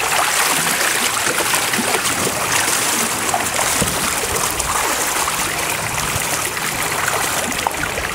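Floodwater sloshing and splashing steadily around people wading through it and an inflatable rescue boat being moved in it, with many small crackling splashes.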